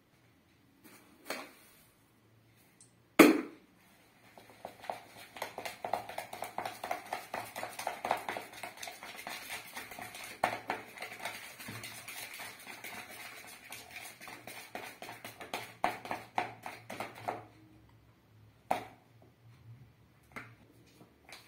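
Batter being beaten by hand in a plastic mixing bowl: a sharp knock a few seconds in, then quick, steady strokes of the utensil against the bowl for about thirteen seconds, and a few loose taps near the end.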